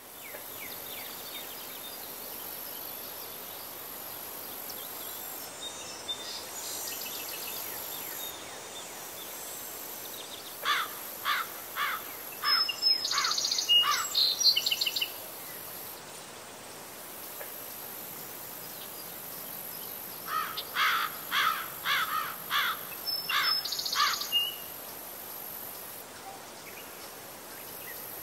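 Steady outdoor hiss with a faint high buzz, over which a songbird sings twice, about ten seconds in and again about twenty seconds in. Each phrase is a run of repeated falling notes that ends in a higher, faster trill.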